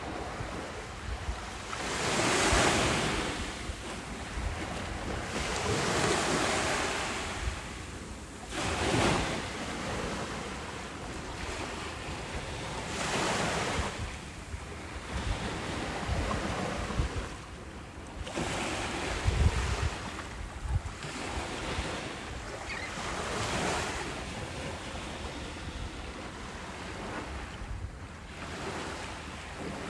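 Ocean waves breaking and washing in, swelling and falling every few seconds, with wind buffeting the microphone.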